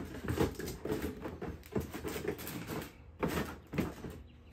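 Things being handled in a cardboard box: irregular rustling, scraping and light knocks, going quieter near the end.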